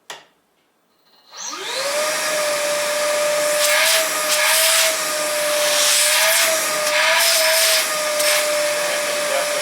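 A switch clicks, and about a second and a half later the Milwaukee M18 Fuel 6-gallon cordless wet/dry vac's motor spins up to high speed and runs with a steady whine over the rush of air, the airflow swelling briefly a few times.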